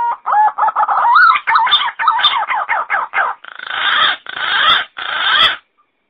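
Green pigeon calling: a quick run of short, warbling whistled notes that wobble up and down in pitch, followed by three longer, noisier rasping notes that end shortly before the close.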